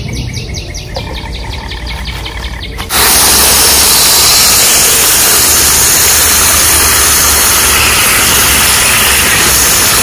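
A garden hose turned on about three seconds in, spraying water with a loud, steady hiss. Before it, rapid, regular chirping in the background, several chirps a second.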